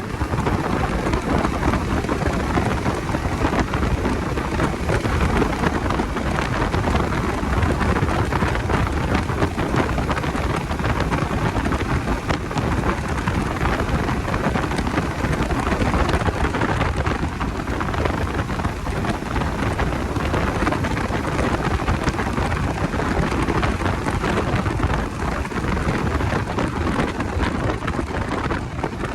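Steady, loud rush of wind and road noise on the microphone of a moving motorcycle, with no distinct engine note standing out.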